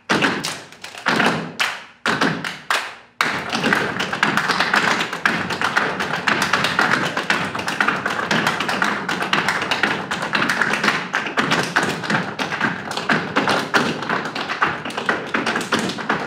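Dancers' feet tapping and stomping on a stage floor in step dance: a dense, fast, continuous stream of sharp taps from about three seconds in. Before that there are a few separate heavy hits.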